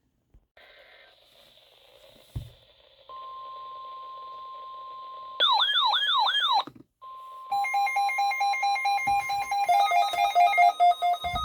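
Electronic emergency alert tones. A faint hiss is followed by a steady single-pitch alert tone, then a fast warbling siren-like tone for just over a second. The steady tone then returns, and a rapid run of beeps steps back and forth between several pitches.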